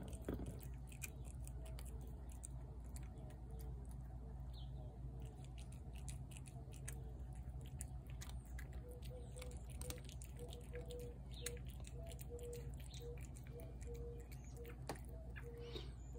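Tabby cat chewing food from a plate: a steady run of soft, irregular clicks and smacks.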